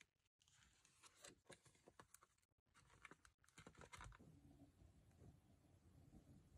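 Very faint clicks and paper rustling as a paperback workbook is handled and opened, stopping about four seconds in and leaving near silence with a faint low hum.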